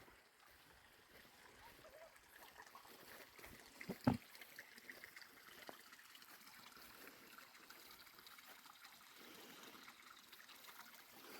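Near silence: faint background hiss, with one sharp knock about four seconds in.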